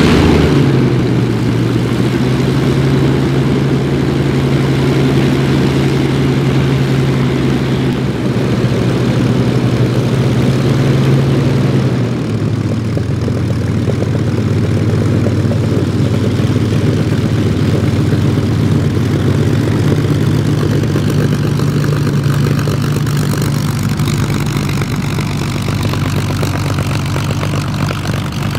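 Rolls-Royce Griffon V12 of a Supermarine Spitfire FR Mk.XVIIIe running on the ground just after start-up. The note falls back from a brief rise right at the start and runs steady, then drops to a lower idle about twelve seconds in.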